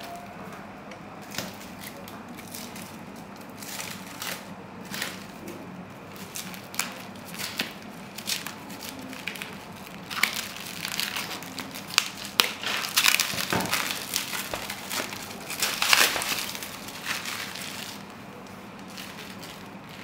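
Thin plastic wrap crinkling and crackling as it is snipped with scissors and pulled off a model loader's cab, in irregular crackles that come thickest about halfway through and stop a couple of seconds before the end.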